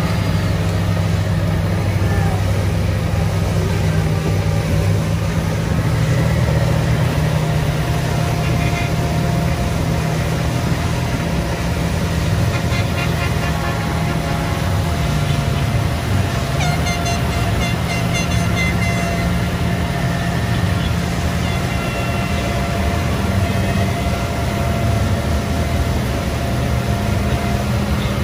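Motorboat engine running steadily under way, over the rushing churn of its wake, with horn toots from other boats in the parade.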